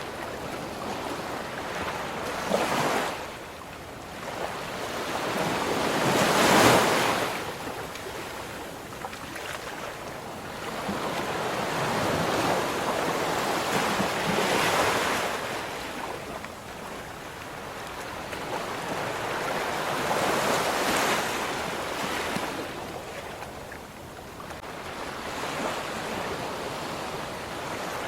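Ocean waves breaking and washing in, the surf swelling and falling away every few seconds; the loudest wave breaks about seven seconds in.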